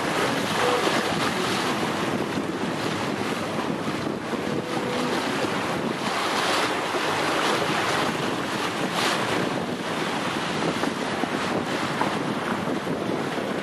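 Wind buffeting the microphone over water rushing and splashing along the hull of a racing sailing yacht under way, swelling and easing with the gusts and waves.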